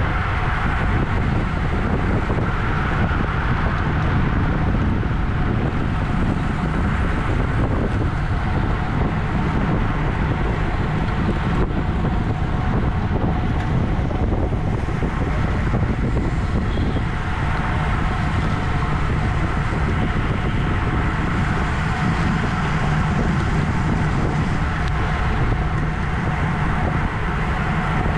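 Steady wind rushing over the microphone at road-racing speed, over a low rumble of bicycle tyres on the road.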